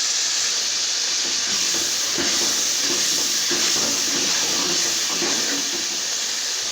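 Tomato and spice masala frying in oil in a pan, giving a steady, even sizzle.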